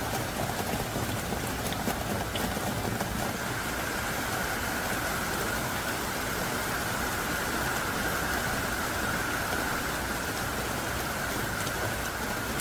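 Heavy rain pouring steadily, a continuous hiss with a few individual drop ticks.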